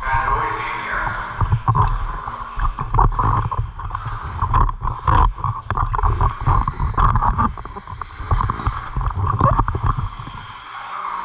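Scuba diver's regulator breathing underwater, the exhaled bubbles gurgling and rumbling in irregular bursts.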